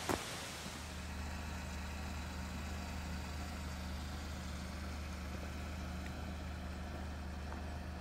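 A car engine running steadily with a low, even hum, setting in just after a click at the start.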